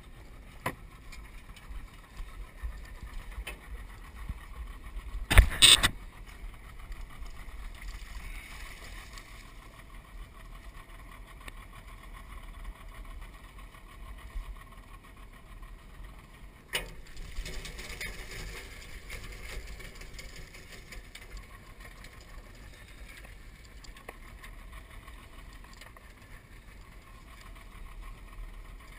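Skiff's outboard motor running slowly with a steady low rumble as the boat pushes through water hyacinth. A loud knock comes about five seconds in and a smaller one past the middle.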